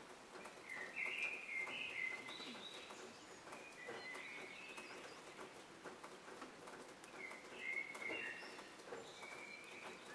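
Faint birdsong: short warbling phrases that come and go several times over a low hiss.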